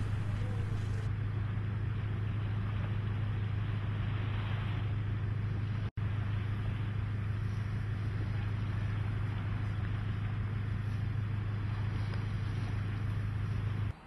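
Whale-watching boat's engine running with a steady low drone under a rushing hiss. It cuts out for an instant about six seconds in and stops abruptly near the end.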